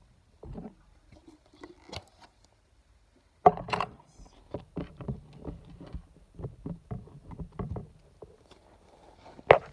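Hands handling a clear plastic tub and its lid: irregular plastic clicks and knocks, with a loud knock about three and a half seconds in, a run of lighter taps after it, and another sharp click just before the end.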